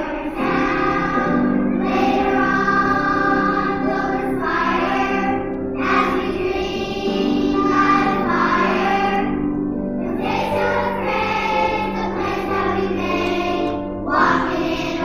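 A choir of second- and third-grade children singing a song in unison phrases.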